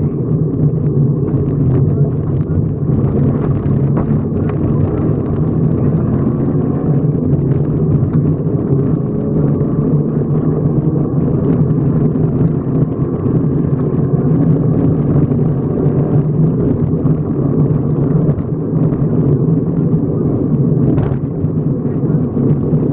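Subaru rally car's flat-four engine pulling hard under load as the car speeds up on a gravel road, heard from inside the cabin, with a steady patter of gravel crackling against the underside.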